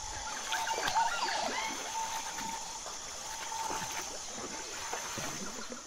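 Soundtrack ambience of trickling, splashing water with a steady hiss, and a cluster of short chirping calls about a second in.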